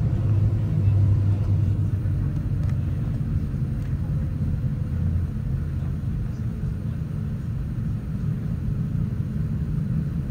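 Low, steady rumble of an airliner heard from inside the passenger cabin, strongest about a second in and easing slightly after.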